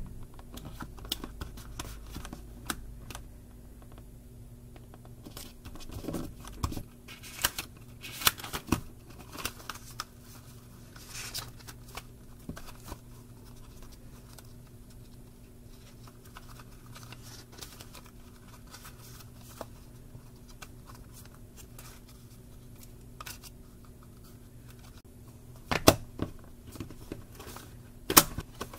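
Paper rustling and page handling on a small spiral-bound Rollbahn notebook: light scratchy rustles and clicks as the cover and pages are turned, with a few sharper taps, the loudest near the end. A faint steady hum lies underneath.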